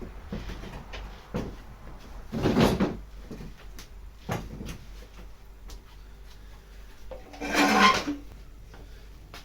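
Workshop handling noise: scattered light knocks and clicks, with two short scraping slides, the louder one near the end, as cut MDF panels are moved about.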